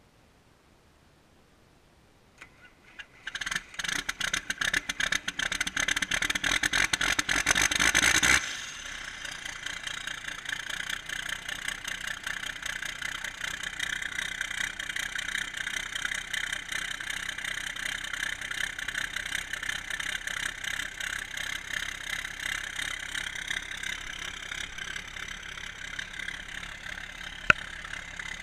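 John Deere 4450's six-cylinder turbo diesel cold-starting: after a couple of faint clicks it cranks and fires loudly for about five seconds, then drops abruptly about eight seconds in to a steady idle. A single sharp click near the end.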